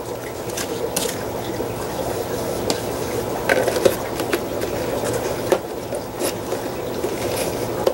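Plastic lids being pressed and snapped onto plastic food containers: scattered sharp plastic clicks and crackles over a steady background hiss.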